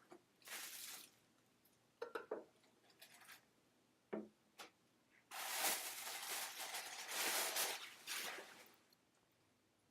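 Packaging rustling in several bursts, the longest lasting about three seconds, with a few light knocks as grinder parts are unwrapped and handled.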